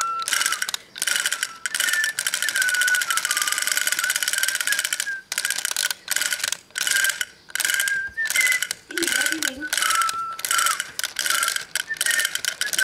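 Battery-operated plastic Doraemon dancing toy running, its gearbox whirring and rattling in short stop-start bursts with a high wavering motor whine.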